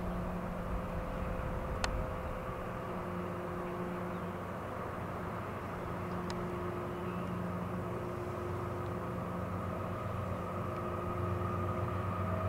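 Diesel locomotive engine running steadily, a low hum made of several steady tones that grows a little louder near the end.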